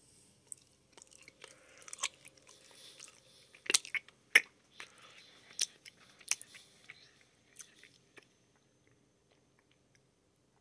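A person chewing food close to the microphone, with crunchy bites and sharp clicks, busiest in the middle and dying away about eight seconds in.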